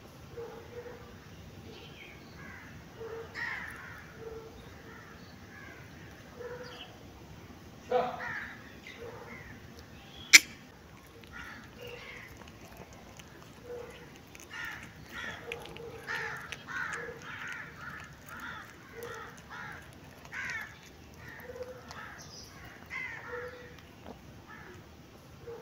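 Birds calling again and again in the background, in short harsh calls that come thickest in the second half. A single sharp click about ten seconds in is the loudest sound, with a softer thump just before it.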